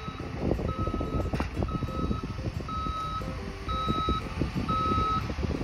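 Snowplow dump truck's reversing alarm beeping about once a second, a steady high beep, over a low rumble.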